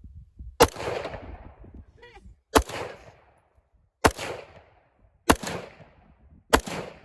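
A scoped rifle fired five times at a steady pace, one shot every one and a half to two seconds, each crack trailing off in a short echo.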